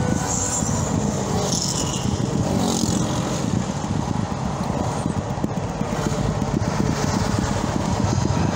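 Steady road and engine noise of a car driving at highway speed.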